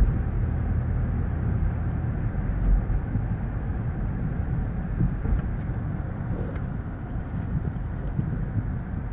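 Steady low rumble of a car's engine and tyres, heard from inside the cabin while driving slowly, easing off gradually toward the end.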